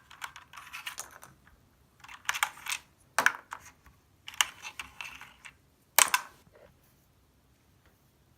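Corsair K70 LUX RGB mechanical keyboard keys clacking in several short bursts of rapid clicks, stopping about six and a half seconds in.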